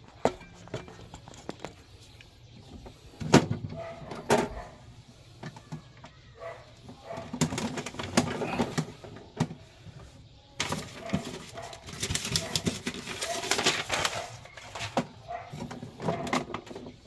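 Plastic casing of an Epson L6170 inkjet printer being handled and turned around on a workbench, with two sharp knocks about three and four seconds in and longer stretches of rubbing and rattling against the mat later on.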